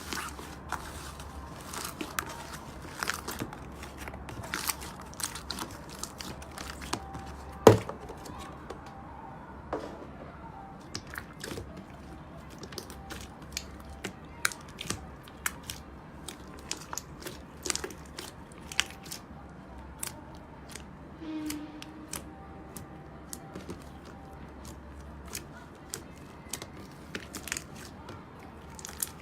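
Slime being handled, squeezed and poked by hand, giving many irregular sticky clicks and small pops, with one sharper, louder pop about eight seconds in.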